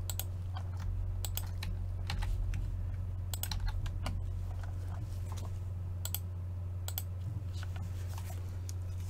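Typing on a computer keyboard: irregular key clicks, some in quick runs, over a steady low electrical hum.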